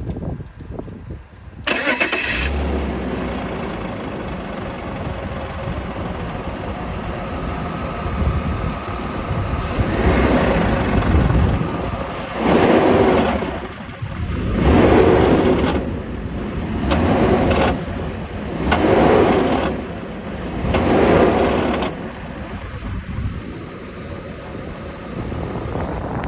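BMW E39's engine starting, idling, then revved in a series of short throttle blips about every two seconds before settling back to idle. It carries a rattle from between the automatic gearbox and torque converter that comes through better on the blips, which some blame on the catalytic converter and others on the gearbox.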